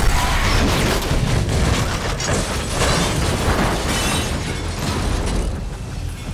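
Film car-chase sound effects: a sudden loud, booming crash and a dense run of impacts and debris, fading near the end.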